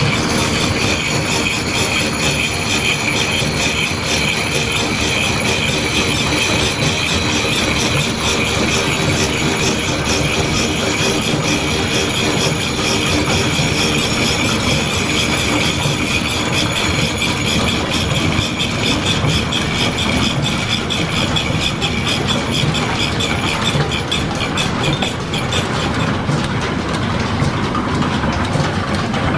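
Slitting saw on a belt-driven horizontal milling machine cutting metal: a steady high-pitched ringing squeal of the teeth over the clatter of the mill and its line-shaft belting. The cutting squeal fades near the end.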